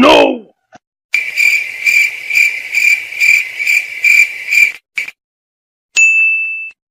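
Chirping cricket sound effect, the kind used to signal an awkward silence: a high pulsing chirp at about two to three pulses a second for nearly four seconds. It is followed near the end by a short, single high beep.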